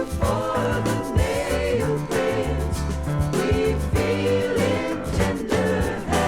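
Gospel music from a band with a steady drum beat and pitched instrumental or vocal lines.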